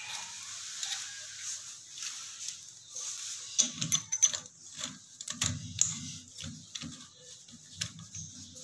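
Chrome wall shower mixer handled against its two wall spindles as it is tried for fit: irregular light clicks and taps of metal on metal with a few dull knocks, busiest in the middle few seconds.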